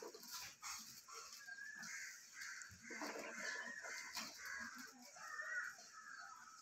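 Crows cawing repeatedly, fairly faint, with a few light clicks and rustles in between.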